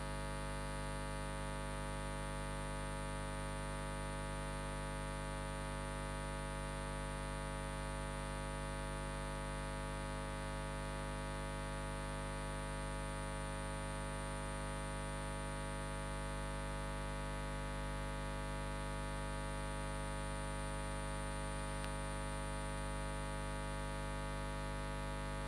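Steady electrical mains hum with a buzz of many even harmonics, unchanging throughout.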